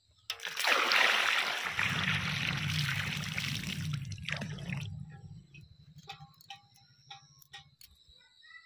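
Water poured from a steel pail into plastic buckets, a loud splashing pour that starts suddenly just after the start and tails off after about five seconds. A few faint drips and light knocks follow.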